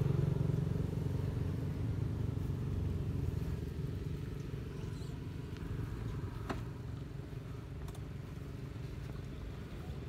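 A motor vehicle's engine, likely a motorbike, runs steadily and slowly fades as it moves off. There is one sharp click about six and a half seconds in.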